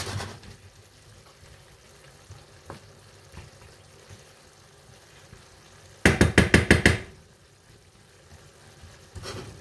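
Beef and mushrooms quietly sizzling in a frying pan, with a fast run of about eight knocks of a utensil against the pan lasting about a second, some six seconds in.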